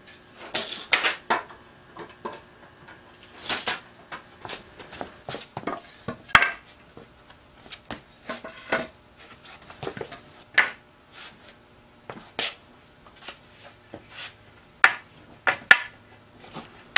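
Red cedar boards knocking and clattering against each other and a concrete floor as they are handled and laid down: a string of irregular sharp wooden knocks.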